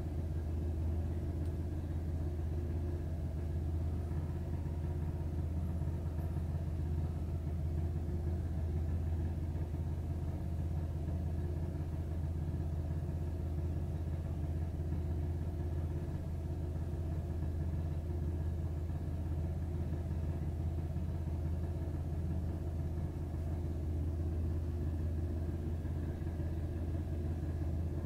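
A steady low mechanical hum, like a small motor or appliance running, with a few faint steady tones above it.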